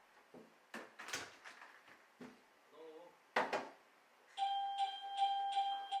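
A few sharp clicks and knocks with a faint whir between them. After about four seconds a steady electronic tone comes in with a light ticking beat, opening the background music.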